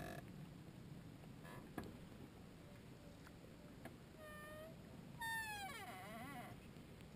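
Faint animal calls: a short steady call about four seconds in, then a longer call that falls in pitch and wavers. A couple of soft knocks come earlier.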